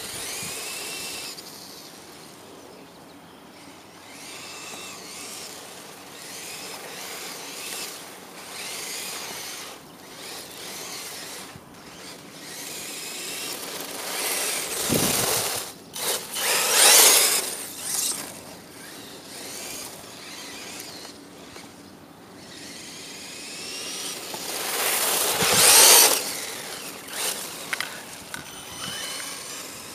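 Traxxas 1/16-scale E-Revo electric RC truck driving on dirt. Its electric motor whines, rising and falling in pitch as the throttle is worked, over the hiss of its tyres on the dirt. It gets loudest twice as it comes close, about halfway through and again near the end.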